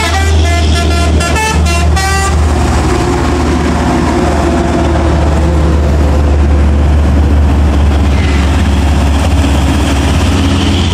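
A double-decker bus's multi-tone horn sounds a rapid on-and-off pattern for about the first two seconds. Then the steady rumble of passing highway traffic follows: trucks, cars and motorcycles.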